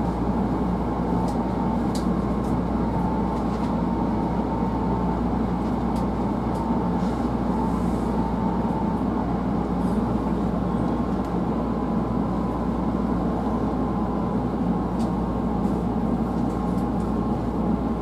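Hankyu 1000 series electric train running along the line, heard from inside the car: a steady rumble of wheels on rail with a faint steady whine.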